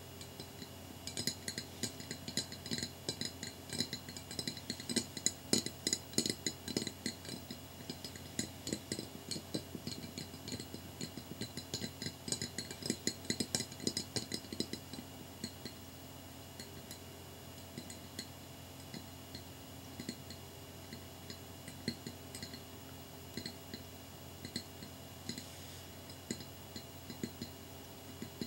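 Long fingernails tapping on a small square glass mirror, making clicky glassy taps. The tapping is fast and dense for roughly the first half, then thins to slower, scattered taps.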